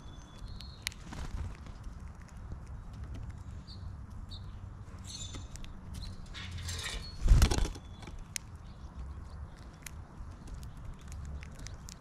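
Small birds at a feeder: a few short, high chirps and scattered sharp clicks of pecking on the feeder, over a low rumble. About seven seconds in comes a rustle and then a loud thump close to the microphone, like a bird landing or flapping off.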